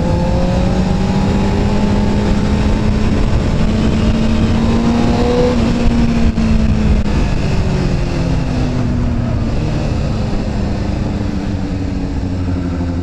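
Honda CBR sport bike's engine running under way, heard from the rider's seat over steady wind and road noise; the revs climb slowly for about five seconds, dip briefly around six seconds in, then hold steady.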